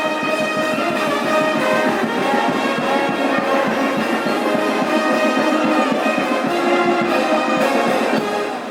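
A brass band playing loudly, held notes over regular drum beats; the music stops near the end.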